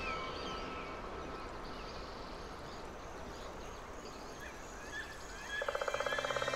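Nature ambience with a soft, steady background hiss and occasional faint bird chirps. Near the end a rapid, evenly pulsing trill starts up.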